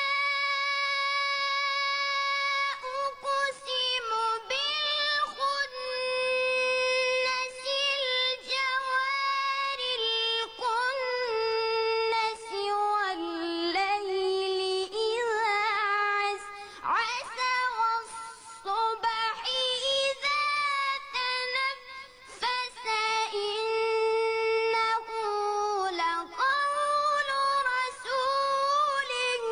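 A high, clear solo voice chanting Quran recitation in long, drawn-out melodic phrases, holding notes and ornamenting them with quick turns, with brief breaths between phrases.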